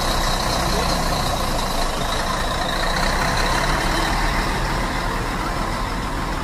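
Scania 113 straight-six diesel engine of a CMA Flecha Azul coach running as the bus moves at low speed, a steady engine drone with a high whine on top.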